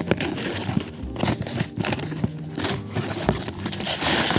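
Packaging being opened and handled: a series of small clicks and crinkles from a cardboard box and its paper wrapping, becoming a louder, denser paper rustle near the end. Soft background music runs underneath.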